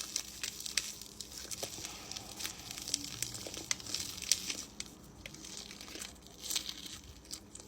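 Close-up chewing of a mouthful of crunchy, potato-coated Korean corn dog: the fried coating crackles in many small, irregular crunches.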